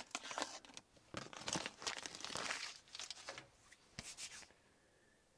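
Paper butter wrapper crinkling and tearing as a stick of butter is unwrapped into a plastic container, a rustling run of many short scratchy noises, with one sharp tap about four seconds in.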